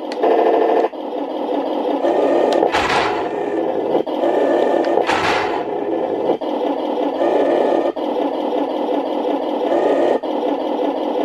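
Hooben 1:16 Sherman M4A3E8 RC tank running on its stock Heng Long electronics: simulated engine sound from the small onboard speaker mixed with the whir of its gearboxes, steady with a few brief dips. Two short hissing bursts come about 3 and 5 seconds in.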